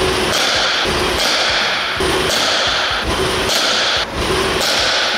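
Background music with a steady, evenly repeating beat, dipping briefly about four seconds in.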